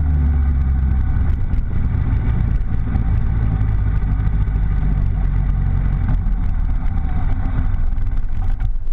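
Motorcycle engine running steadily at low revs, close to the microphone, with small shifts in pitch as the throttle changes.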